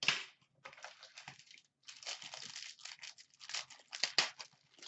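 Packaging crinkling and tearing as a sealed Upper Deck Black hockey card box is opened by hand. It comes as a run of short, irregular rustles, with louder crackles at the start and about four seconds in.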